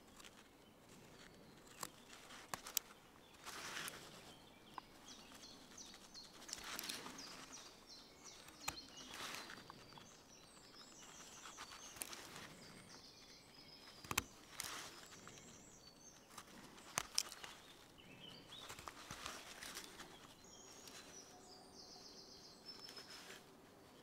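Small blade of a Victorinox Swiss Army knife cutting notches into a wooden knife blank: faint, irregular short scraping cuts and sharp snicks every second or two. Birds chirp now and then in the background.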